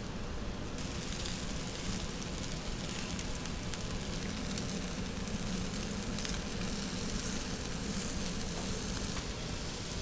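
Chicken skewers sizzling as they cook, a steady hiss with occasional faint crackles over a low, even hum.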